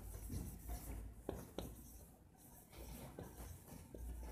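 Marker pen writing on a whiteboard: faint scratching strokes with small taps, and a brief pause about two seconds in.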